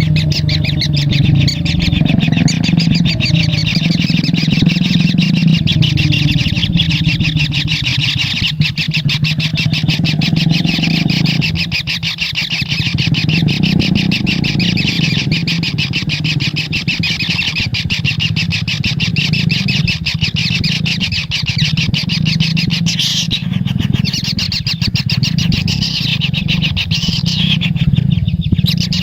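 Kingfisher chicks giving a continuous, rapid buzzing churr as begging calls in the nest, over a steady low hum.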